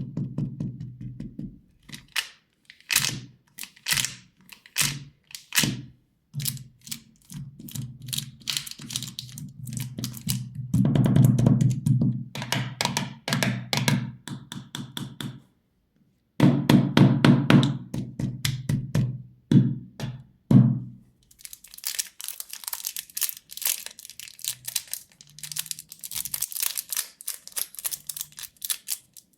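Candy and its plastic wrappers being handled: a run of irregular taps, clacks and hollow thunks, then from about three-quarters of the way through a dense crinkling and crackling of wrapper.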